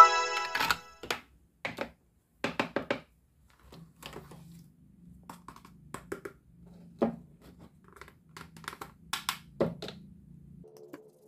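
Hard plastic toy pieces clicking and knocking as they are handled and set down on a board and plate, with a short ringing tone at the very start.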